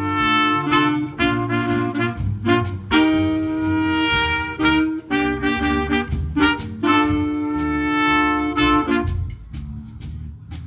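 Big band playing jazz live: the saxophone, trumpet and trombone section plays loud held chords and short punches. About nine seconds in the horns drop out and the music goes on more quietly.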